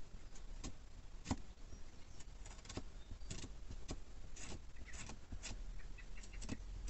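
A flat stick scraping and tapping on a silicone mould as it spreads wet water-based aluminium casting compound into the cavities, in irregular light clicks and scrapes.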